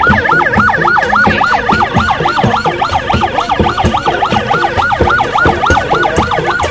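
Electronic siren in a fast yelp, its pitch sweeping up and down about six times a second without a break.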